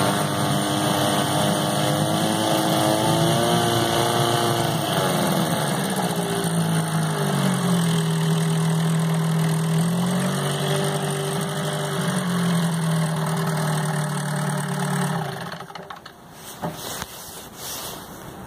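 Mercury 4 HP outboard motor running in a test barrel of water. About five seconds in it drops from a faster idle to a lower one, and that idle rises and falls in pitch. The motor cuts out about fifteen seconds in, followed by a few light knocks.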